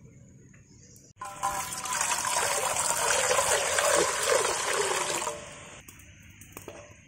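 A stream of water poured into a metal cooking pot, splashing loudly. It starts suddenly about a second in and stops about five seconds in.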